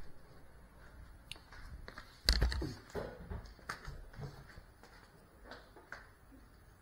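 Quiet handling noise from a small FPV quadcopter being set down on a hard floor: one solid thump a little over two seconds in, then scattered light taps and clicks. The motors are not running.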